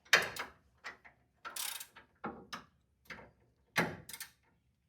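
Hand ratchet wrench worked in short strokes, each back-swing a brief burst of ratchet clicks, about one every half second, as a large bolt is run down tight.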